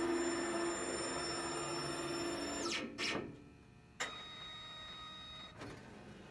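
Brother GTX direct-to-garment printer's platen drive running with a steady motor whine, which winds down with a falling pitch about two and a half seconds in. About a second later the print-head carriage motor starts suddenly with a quieter whine and stops with a click after about a second and a half, as the carriage parks in the flushing position.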